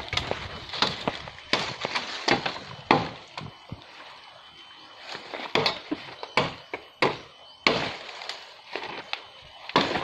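Irregular knocks, cracks and rustles of dry sticks, stalks and dead leaves being broken and handled, with a louder sharp crack now and then.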